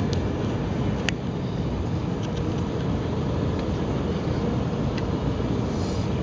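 Steady roar inside a jet airliner's passenger cabin in flight: engine and airflow noise, with a faint click about a second in.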